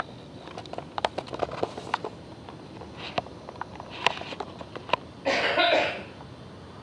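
Scattered small clicks and knocks, then about five seconds in a person's single harsh cough, lasting under a second.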